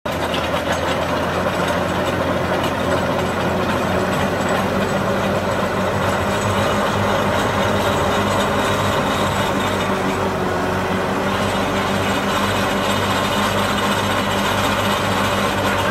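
Massey Ferguson tractor's diesel engine running steadily, driving a twin-auger post-hole digger through the PTO as the augers bore into the soil.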